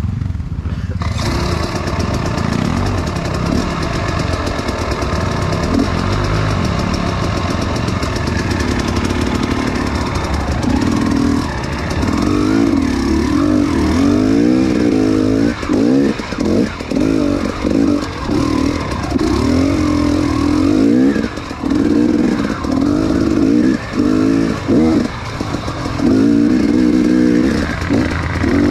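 Off-road trail motorcycle engine running hard, starting abruptly about a second in. Through the second half the revs rise and fall with the throttle, easing off and picking up again every second or so.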